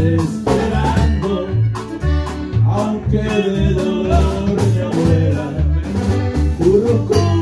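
Norteño band music: an instrumental passage with no clear lead vocal, a melody line over a steady, pulsing bass.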